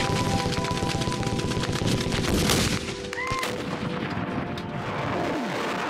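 Automatic gunfire: a dense run of rapid shots for the first two and a half seconds or so, then a few scattered shots.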